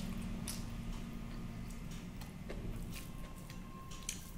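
Eating by hand: scattered wet mouth clicks and smacks from chewing rice and curry, with fingers working rice on a steel plate, over a steady low hum.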